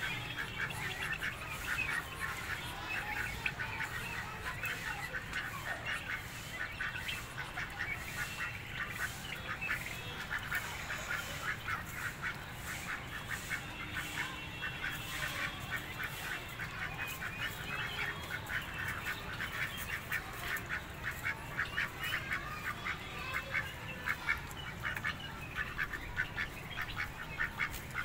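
A flock of domestic ducks, Indian runners and Khaki Campbells, quacking without let-up, many short calls overlapping in a rapid chatter.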